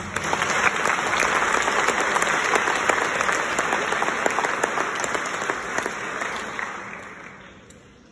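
Audience applauding at the end of a band piece: a dense patter of many hands clapping that dies away over the last couple of seconds.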